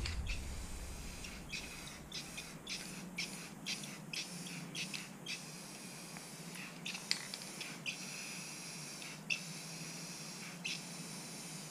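Aerosol spray-paint can hissing, first in short spurts and then in longer sprays of a second or two with brief pauses, as black paint goes onto a flat metal bracket.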